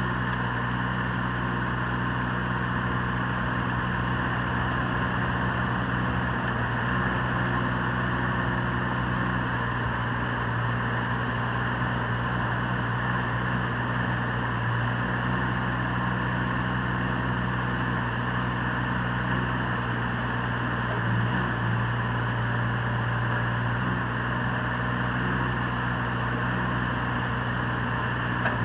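2015 John Deere 17G mini excavator's three-cylinder Yanmar diesel engine running steadily at a constant speed.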